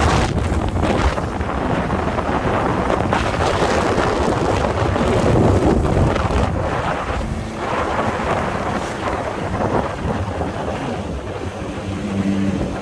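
Heavy wind buffeting on the microphone from a motorcycle ride at road speed, a steady low rumble, with a faint engine hum showing through now and then.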